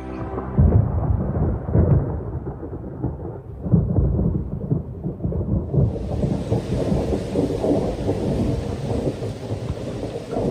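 Thunderstorm: deep rolling thunder with its strongest rumbles about half a second, two and four seconds in, and steady rain starting about six seconds in.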